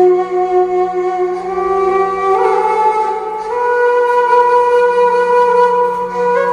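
Harmonium playing a slow melody of long held reedy notes that step gradually higher, over a steady low tone.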